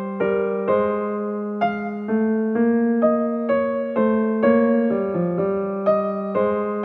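Background music: a gentle electric piano melody, notes struck about twice a second over held lower notes.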